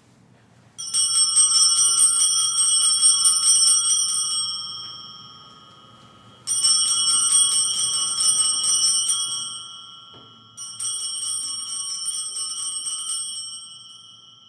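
Altar bells (Sanctus bells) shaken in three rings of about three seconds each, each a rapid jingle of several high tones that fades out; the threefold ringing marks the Eucharistic benediction with the monstrance.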